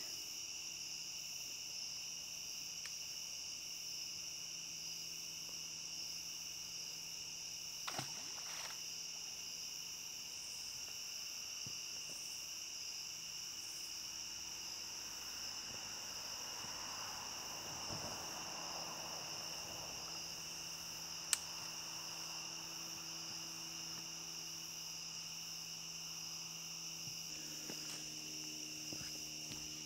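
Steady high-pitched chorus of crickets and other night insects, trilling without a break. A couple of soft knocks come about eight seconds in, and one sharp click follows about two-thirds of the way through.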